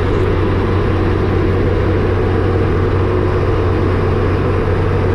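Heavy diesel engines of road-paving machinery running steadily: a dump truck tipping asphalt into an asphalt paver's hopper. The machines give a constant low hum.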